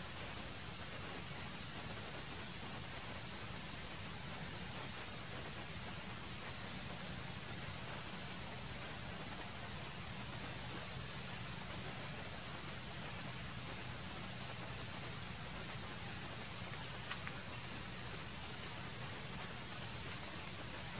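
Steady high-pitched drone of insects in the forest canopy, with a fainter, higher trill coming and going and a few faint clicks near the end.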